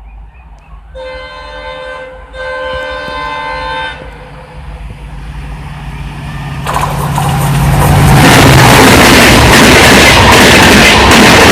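Diesel locomotive horn sounding two blasts about a second and a half each, then the engine's drone growing as the train approaches. From about eight seconds in the passing train is loud, its wheels clattering over the track joints.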